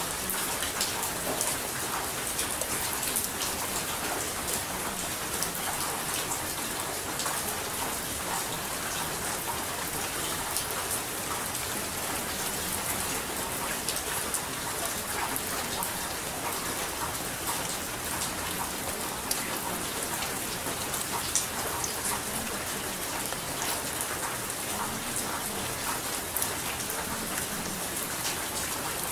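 Steady rain falling, a dense even hiss with many small drop impacts ticking through it.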